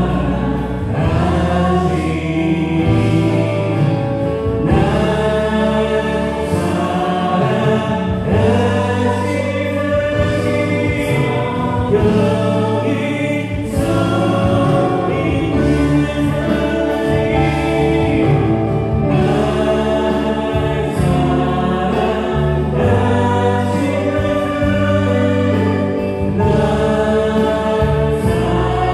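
Live Christian worship music: a praise band of keyboard, electric bass and drums accompanying a group of singers in a gospel-style song.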